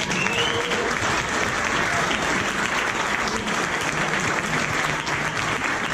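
Audience clapping steadily, a dense even applause.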